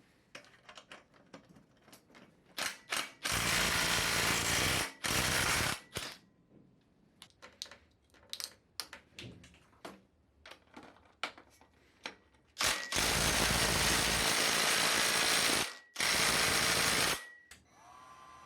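Clicks and knocks of tools being handled, with four loud bursts of a power tool running steadily for one to three seconds each.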